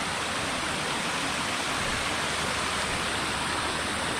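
Water flowing steadily, a constant even rush with no breaks.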